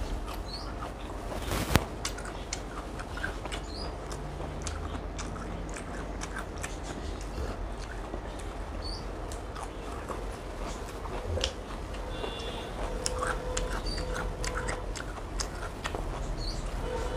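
Close-up mouth sounds of a person biting and chewing cucumber slices and biryani rice: many small clicks and crunches throughout, with one sharp click about two seconds in.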